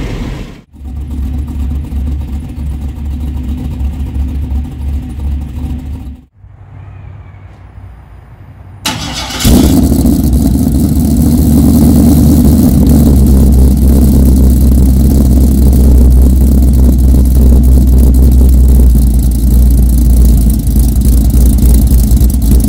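Side-exit exhaust of a 1989 Chevrolet C1500's 5.3 L LM7 V8 with a TSP Chopacabra cam, long-tube headers, equal-length 2.5-inch pipes, an X-pipe and Magnaflow Magnapack mufflers. The engine runs steadily, goes quieter for a few seconds, then about nine seconds in starts up with a sudden jump in loudness and settles into a loud, steady idle.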